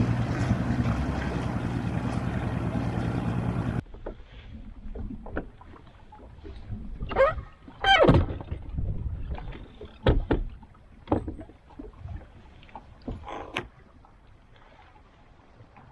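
A boat motor runs steadily with a low hum and rushing wind and water noise, then cuts off suddenly about four seconds in. After that come scattered knocks and clicks from handling gear in the boat, with a short sliding squeak just before the midpoint.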